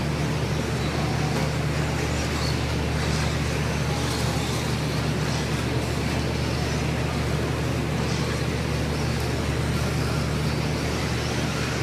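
Steady low hum of an indoor RC raceway hall, with radio-controlled stock trucks running on the dirt track.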